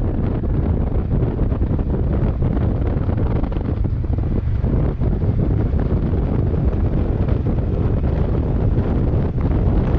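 Steady, loud wind buffeting the microphone of a moving motorcycle, a dense low rush with no clear engine note above it.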